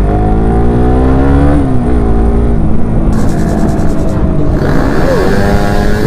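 Suzuki Satria FU's single-cylinder four-stroke engine, breathing through a Ronin Katana stainless full-system aftermarket exhaust, revved up for about a second and a half, settling back to idle, then given a quick blip of the throttle near the end.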